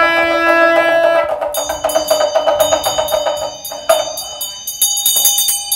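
Buddhist ritual music: a held wind-instrument note fades out in the first second or so, then a ritual hand bell rings and a small hand drum is struck in quick, even strokes, about five a second, with one louder stroke near the middle.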